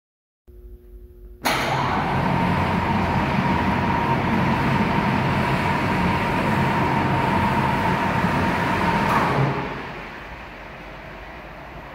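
10-tonne overhead bridge crane running with no load, its electric hoist trolley travelling along the girder: a steady mechanical whine that starts abruptly about a second and a half in and drops to a quieter hum about nine and a half seconds in.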